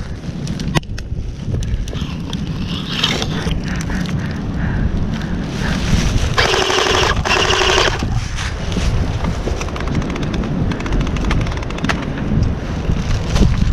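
Airsoft gun firing on full auto in two quick back-to-back bursts about six and a half seconds in, a rapid buzzing rattle, with wind rumbling on the microphone throughout.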